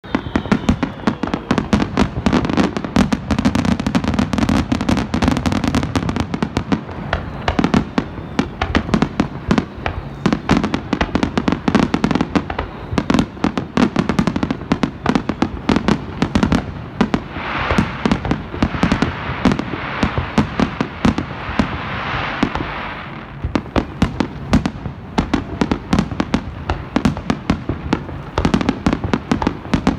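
Aerial fireworks bursting in rapid, overlapping succession, with many bangs a second. For several seconds past the middle, a dense crackling hiss rises over the bangs.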